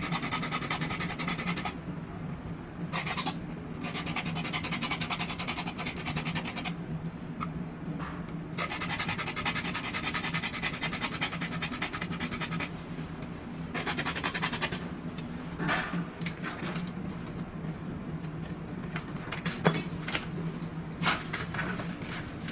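A bare hacksaw blade, held in the hand, sawing through a white PPR plastic pipe fitting: rapid back-and-forth rasping strokes in several spells with short pauses. In the last few seconds the sawing gives way to a few sharp clicks and knocks.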